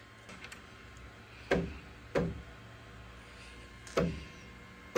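Four sharp metal clicks and clanks as a pliers wrench is set and clamped onto a fitting on a CNC router's aluminium gantry to tighten it, over a faint steady hum.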